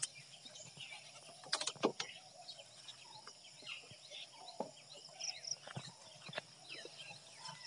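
Birds chirping with a steady insect drone, broken by a few short sharp clicks, the loudest about two seconds in.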